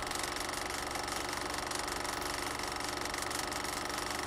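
Reel-to-reel film projector running with a steady, fast mechanical rattle.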